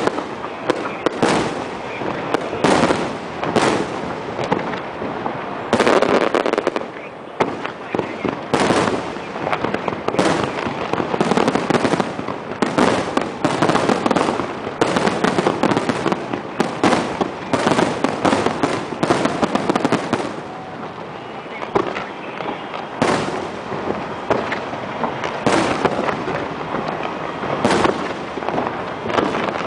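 Aerial fireworks display: shells bursting one after another in a dense, continuous barrage, with crackling between the booms.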